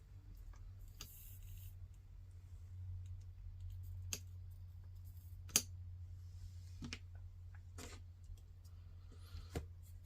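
Faint, scattered clicks and taps of small metal parts and tools being handled on a workbench, about five of them in the second half, over a steady low hum.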